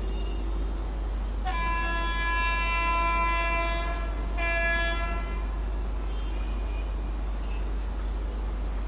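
WAP7 electric locomotive's horn: one long blast of about three seconds starting about a second and a half in, then a short second blast.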